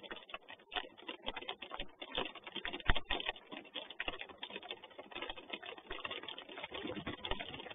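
Rain ticking and tapping on a falcon nest box: a dense, irregular patter of small clicks, with one louder knock about three seconds in.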